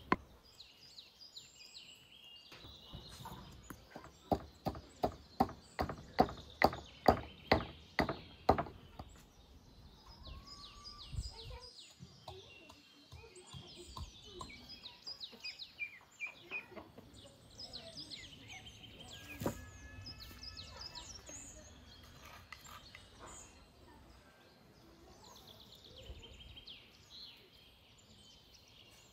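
Small birds chirping, with a run of about fourteen sharp knocks, roughly three a second, a few seconds in, and one more knock later.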